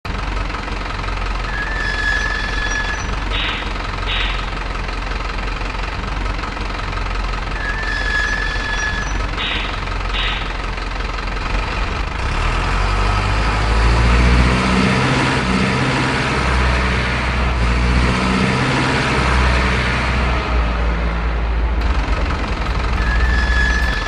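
Simulated diesel truck engine sound of an RC model truck: a steady low rumble that grows louder and rougher about halfway through. In the first half a short high tone and two brief hisses come twice, about six seconds apart.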